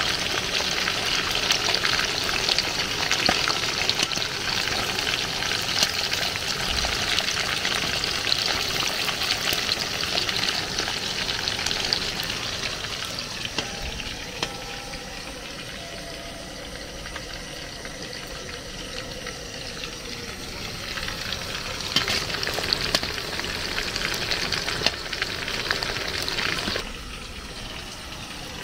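Dried fish frying in hot oil in an aluminium pot: a steady sizzle with scattered clicks and scrapes of a metal spatula against the pot. The sizzle is quieter for a stretch in the middle and drops sharply near the end.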